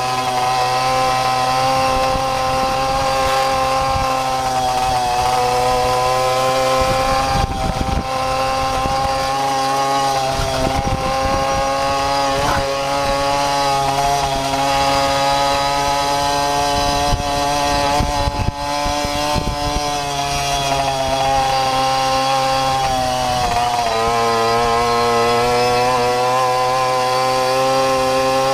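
Babetta moped's 50 cc single-cylinder two-stroke engine running hard at fairly steady revs, with brief dips in pitch a few times.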